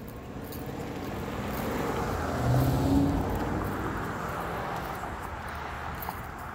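A car driving past on the street: its engine and tyre noise swells to a peak about halfway through, then fades away.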